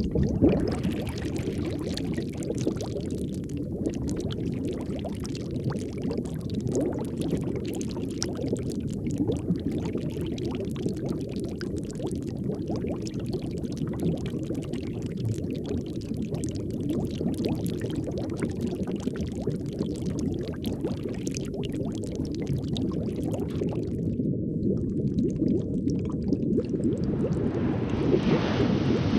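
Underwater ambience: a steady low rushing with constant bubbling and gurgling water. A brighter hiss comes in near the end.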